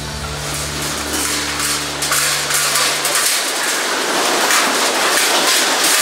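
Loud, dense din of a barn full of young laying hens, mixed with clatter and knocks from the wire crates they are loaded into. The last held notes of intro music fade out over the first three seconds.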